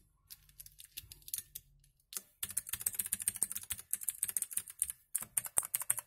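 Fast typing on clicky blue mechanical key switches of a T-Dagger Bermuda T-TGK312-BL keyboard, a dense run of key clicks starting about two seconds in, with a brief pause near the end. The board has its bottom case off and rests on a mouse pad, and the typing is still loud.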